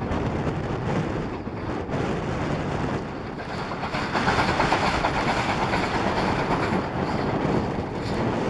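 BR Standard Class 4 2-6-4T steam tank engine 80072 passing with its train of carriages, getting louder from about three and a half seconds in as it goes by close.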